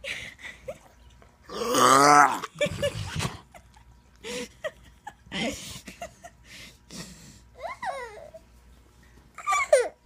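Toddler laughing and squealing, loudest about two seconds in, with shorter giggles and vocal sounds later.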